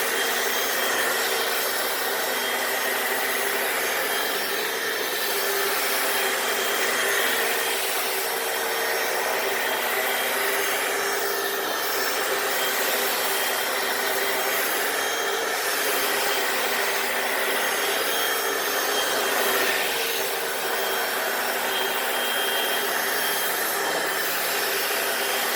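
Hoover FloorMate wet floor cleaner running steadily while working over a garage floor: a constant motor whine over a rushing hiss.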